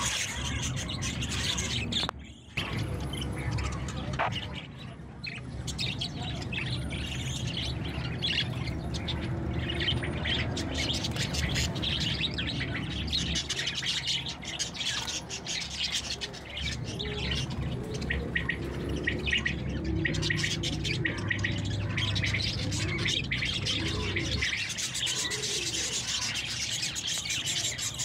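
Many small caged birds, budgerigars and finches among them, chirping and twittering rapidly and without pause over a low steady background rumble.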